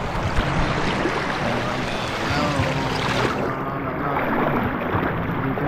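Shallow river water rushing and splashing over rocks right around the microphone, a steady noise, with faint voices of other bathers behind it.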